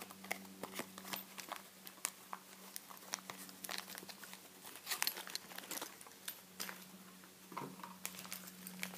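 Hands rummaging through a cardboard box of parts: plastic packaging crinkling, with many scattered light clicks and rustles, over a steady low hum.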